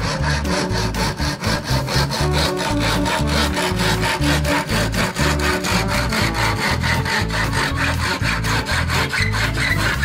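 Hand saw cutting through bamboo in fast, even strokes, about five a second, over background music with a low, stepping bass line.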